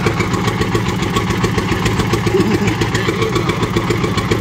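Small fishing boat's deck-mounted engine running steadily at idle, with a fast, even pulse.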